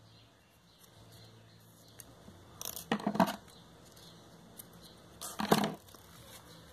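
Steel scissors handled and snipping the thread and ribbon ends of a ribbon hair bow: two short bursts of clicking and rustling, about three seconds in and again about five and a half seconds in.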